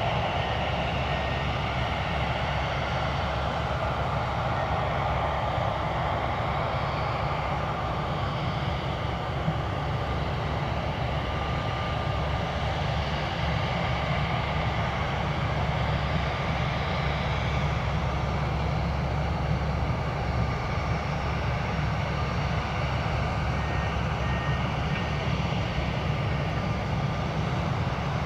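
Airbus A320 jet engines running at taxi power, a steady, even engine noise with a low rumble underneath.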